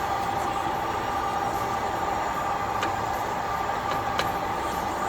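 16B05 screw-cutting lathe running in reverse, a steady machine noise with an even gear whine and two faint clicks about three and four seconds in.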